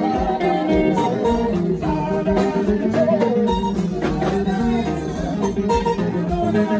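Live band playing slow Ghanaian gospel highlife: electric guitars, electronic keyboard and a drum kit.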